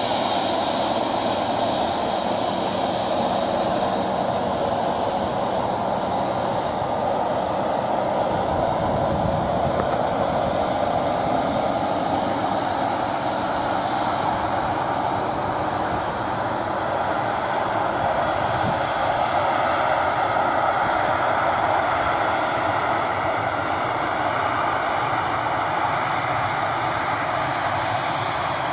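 Embraer E190 airliner's twin turbofan engines running, a loud, steady jet noise that holds without rising or falling.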